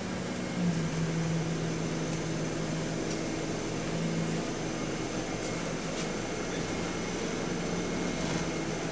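Alexander Dennis Enviro400 MMC double-decker bus running, heard from inside, as a steady engine hum whose note drops slightly about a second in. Over it sits a thin, steady high whine, the turbo whine that the rider takes for a turbo leak.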